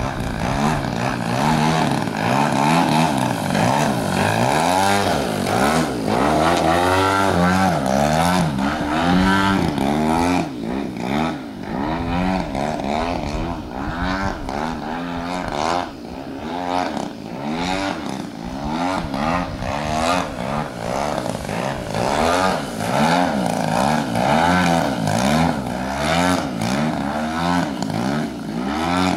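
Engine and propeller of a 30% scale Extra aerobatic model plane, its pitch sweeping up and down again and again as it throttles and swoops past through aerobatic manoeuvres.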